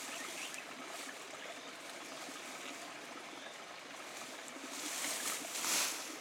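Steady rush of flowing water, like a stream, growing briefly louder about five seconds in.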